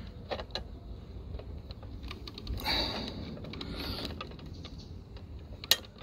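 Small hand clippers working on the thin wire of a suet-cage feeder: light clicks and scraping as the wire is handled, a rustling scrape about halfway through, and one sharp snip near the end as the wire is clipped.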